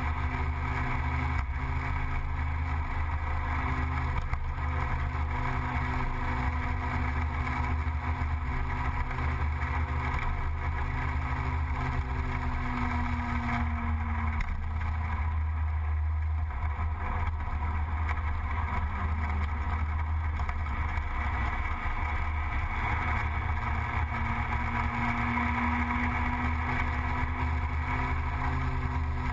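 Gilera Runner 180 scooter engine running steadily under way, with wind and road noise. The engine note drops as it eases off about thirteen seconds in, then climbs again later as it picks up speed.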